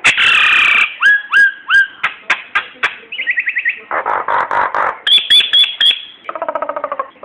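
A jalak nias starling singing a varied song. It opens with a harsh rasping call, then three upswept whistles, clicks, a quick run of falling notes, a buzzy phrase and high repeated notes, and ends near the end with a fast pulsing trill.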